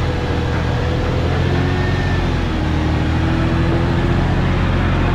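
Toyota FJ Cruiser's V6 engine working at low revs as the truck crawls up a steep sandstone ledge, its note rising slightly about halfway through, over a heavy low rumble of wind on the microphone.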